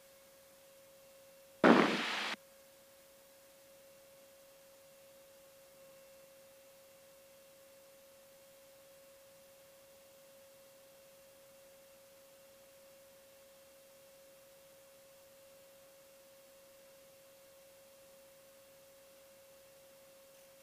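Cockpit intercom audio feed with a faint, steady thin tone and no engine noise. About two seconds in, a short burst of static snaps on and cuts off abruptly.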